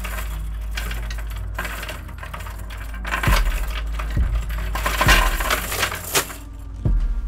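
Steel chain clinking and rattling as its links are handled and gathered over the back of a wooden chair, in a busy stream of small metallic jingles that is densest in the middle.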